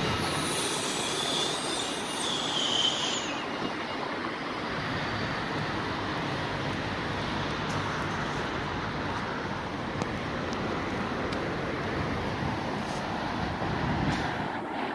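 Steady city street traffic noise from passing vehicles, with a high-pitched metallic squeal during the first three seconds.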